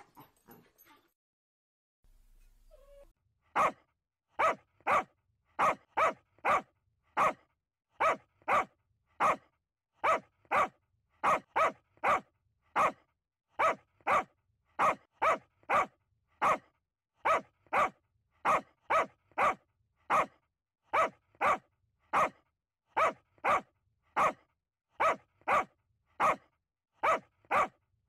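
A medium-sized dog barking over and over in short, sharp single barks, about one and a half a second at a steady pace. The barking starts about three and a half seconds in.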